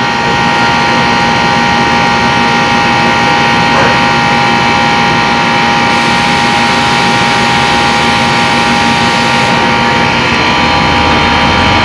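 Air conditioner's compressor and fan motor running steadily with an even hum during refrigerant charging. A high hiss rises for a few seconds in the middle.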